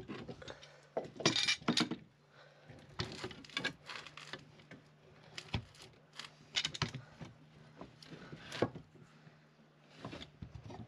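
A steel bar clamp being slid into place and screwed up against a timber block: scattered metallic clinks, clanks and knocks of the clamp's jaw and bar. A faint steady low hum sits underneath.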